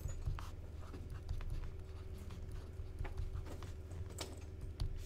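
Pen stylus tapping and scratching on a tablet screen while handwriting, in short irregular clicks, over a steady low hum.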